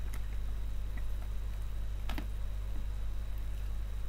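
Plastic laptop-charger case halves being handled and fitted together, giving a few light clicks, the clearest about halfway through, over a steady low hum.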